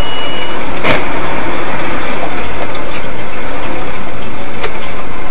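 Loud, steady motor-vehicle engine and road noise. A short high beep sounds at the start, a sharp knock comes about a second in, and a fainter knock comes near the end.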